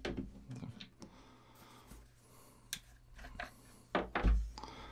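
Small handling sounds of a wooden toy car and its wooden wheels on a cutting mat: light scattered clicks and taps, with a louder thump about four seconds in.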